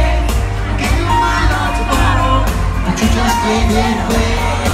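Live band playing a pop song through a large concert PA, with a lead vocal singing over heavy bass.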